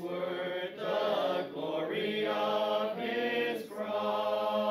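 Choir of voices singing a cappella, long held chords in short phrases with brief breaks between them.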